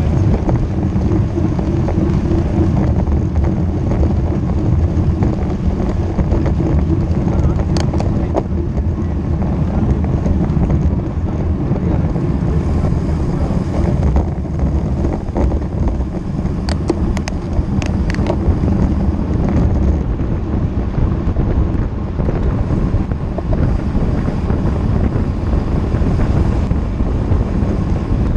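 Wind rushing over the microphone of a road bike ridden at speed, a steady low rumble, with a few short sharp clicks about eight seconds in and again around seventeen to eighteen seconds.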